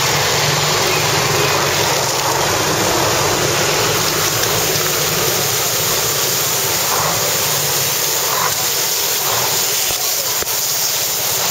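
Steady rushing hiss of water jets from garden hoses spraying across the road and onto passing vehicles, mixed with wind noise on the microphone of a moving motorbike.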